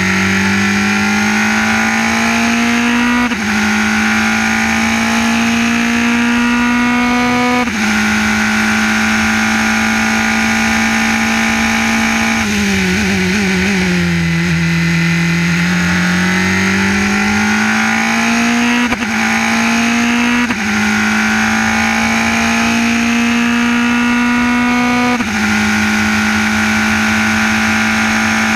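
Formula 3 race car's engine at high revs heard onboard over wind rush, its pitch climbing and dropping sharply at each upshift, twice early on and three more times in the second half. Near the middle the pitch falls through a quick run of downshifts with throttle blips under braking, then rises again as the car accelerates out.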